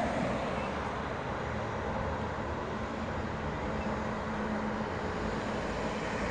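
A Rolls-Royce Phantom driving past close by, heard mostly as an even rush of road noise that eases slightly in the first second and settles into steady street traffic.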